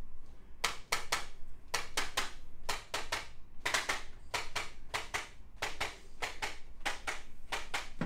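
Handheld chiropractic adjusting instrument tapping against the side of the neck: a run of sharp mechanical clicks, often in quick pairs or threes, about four a second.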